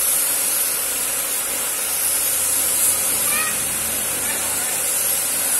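Gravity-feed spray gun hissing steadily as compressed air atomises paint onto a car body panel.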